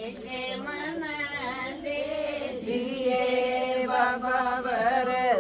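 Women's voices singing a Hindi devotional bhajan unaccompanied, slow and chant-like, with long held notes.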